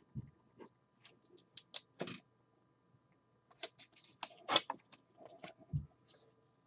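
Quiet, irregular light clicks and taps with a few short scratchy strokes, the sound of small objects being handled by hand.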